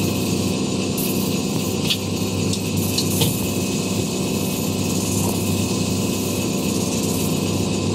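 Electric shoe-polishing machine running with a steady motor hum, its spinning brush wheel buffing wax on a leather shoe as the shoe is worked gently back and forth against it.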